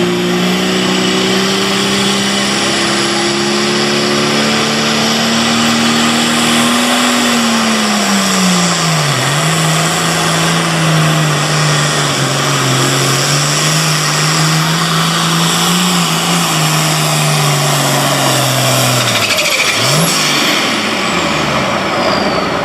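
Turbocharged diesel Super Farm pulling tractor engine running hard and loud. Its note sags sharply about nine seconds in, holds steady and lower, then drops again near the twenty-second mark. A faint high whine glides down near the end.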